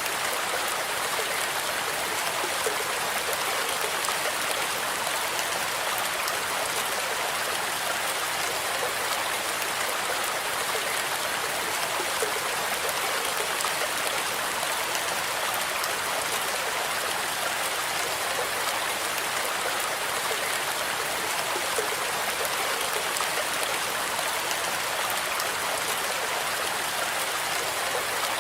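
Steady rain falling, an even hiss with faint scattered drop ticks and no change in strength.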